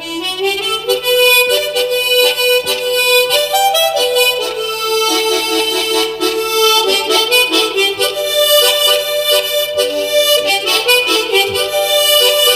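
Two harmonicas, one in G and one in G-sharp, played solo without any backing track: a continuous melody whose notes are chopped into quick regular pulses by tongue and mouth-shape technique.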